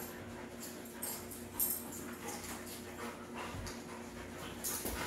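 Two dogs play-fighting, mock mouth-fighting: irregular dog sounds and scuffling, with a sharper, louder sound about one and a half seconds in, over a steady low hum.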